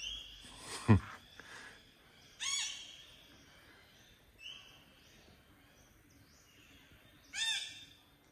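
A bird giving short, harsh calls: one about two and a half seconds in and another near the end, with a fainter call between. About a second in there is a single sharp sweep falling quickly from very high to very low, the loudest sound here.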